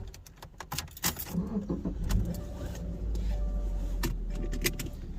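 Car running, heard from inside: a steady low rumble that grows louder about three seconds in, with scattered sharp clicks and handling knocks.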